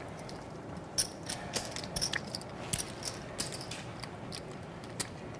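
Poker chips clicking against each other as a player gathers and stacks a pile of chips: a run of irregular sharp clicks, several a second.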